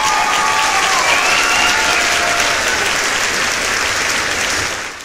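Large crowd applauding and cheering, with a few high calls rising above it in the first couple of seconds. It fades out near the end.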